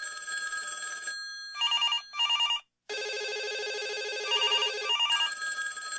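Electronic telephone ringtones sounding at once as a sound effect: steady tones with short repeated two-tone beeps laid over them, cutting out briefly twice.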